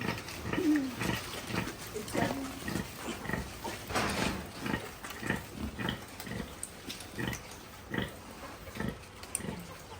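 Pigs grunting over and over in short, irregular grunts, with a brief falling squeal near the start.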